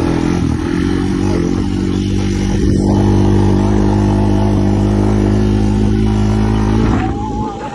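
Honda TRX250X four-wheeler's four-stroke single-cylinder engine running at steady throttle while riding, easing off about seven seconds in.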